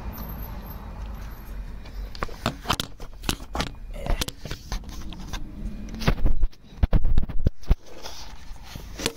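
Irregular metallic clicks, scrapes and clunks of hand tools and parts on an engine being worked on, with a cluster of louder knocks about six to eight seconds in.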